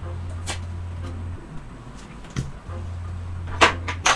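Playing cards being dealt and flipped onto a felt blackjack table: a few short snaps and slides, the loudest about three and a half seconds in. A low hum cuts in and out underneath.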